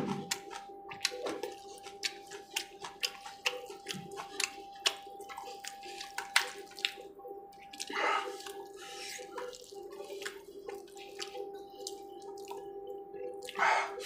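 Close-up wet eating sounds: chewing and lip-smacking with many sharp clicks, as fingers tear meat from a roasted chicken leg. Two longer noisy swishes come about eight seconds in and near the end, over a faint steady hum.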